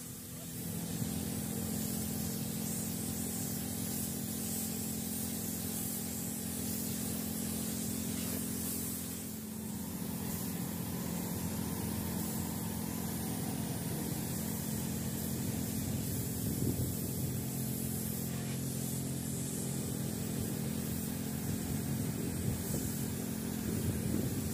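Paint spray gun hissing as it sprays paint, over the steady hum of a motor running, probably the machinery that supplies the air. The hum drops slightly in pitch about ten seconds in.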